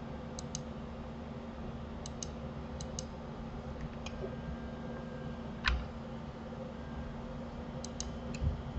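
Computer mouse clicking, mostly in quick press-and-release pairs, several times, with a duller knock a little past halfway, over a steady low hum.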